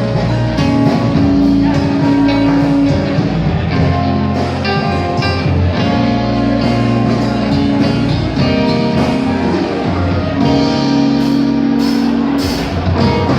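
A live band playing rock music, with guitar to the fore.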